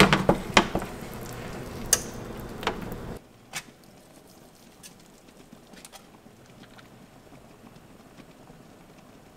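A few sharp clicks and knocks, like kitchen things being handled, over a low hum. About three seconds in the sound cuts off abruptly, leaving a quiet background with a few faint ticks.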